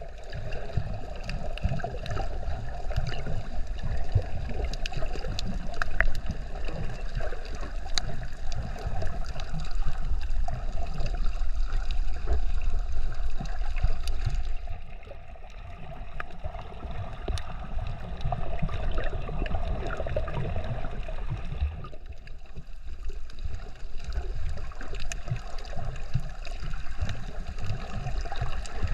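Water sloshing and gurgling over the microphone of a snorkeler's camera, with a low rumble and scattered sharp clicks. It drops quieter briefly twice, about halfway through and again a few seconds later.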